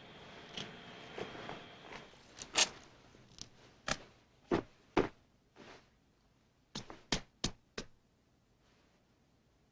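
Foley sound effects: a series of sharp knocks and thuds, spaced irregularly at first, then four in quick succession about seven seconds in.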